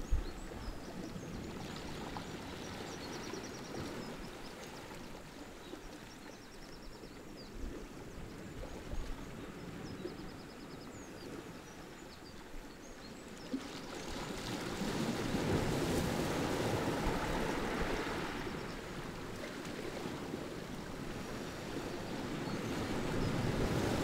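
Small sea waves washing in over a pebble and rock beach: a low wash of water with scattered clicks of pebbles, swelling into a louder surge a little past halfway and rising again near the end as another wave breaks.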